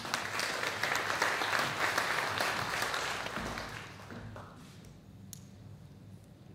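Audience applauding, dying away about four seconds in, followed by a quiet room with a faint click or two.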